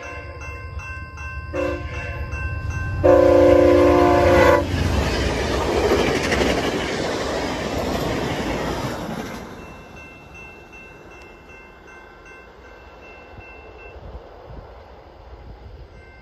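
VIA Rail passenger train sounding its horn as a chord, a short blast about a second and a half in, then a longer, louder blast about three seconds in. The train then passes over the level crossing with a rush of wheel and car noise that dies away after about nine seconds, while the crossing bell keeps ringing.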